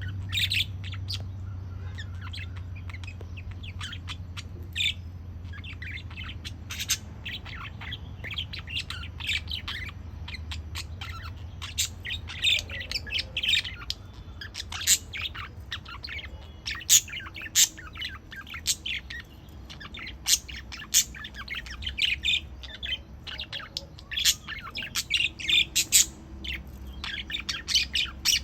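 Pet budgerigars chattering: rapid chirps, warbles and squawks, busier in the second half, over a steady low hum.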